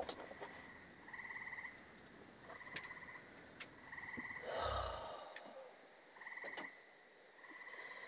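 A frog chorus: short pulsed trills, each about half a second long, repeating every second or two, faint. About halfway through, a brief rustle with a low thump.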